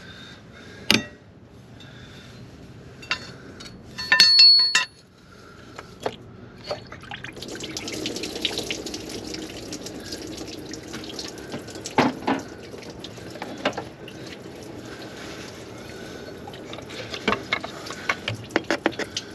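Liquid running and dripping with a steady splashing hiss, broken by scattered metal clicks and one short ringing clink about four seconds in.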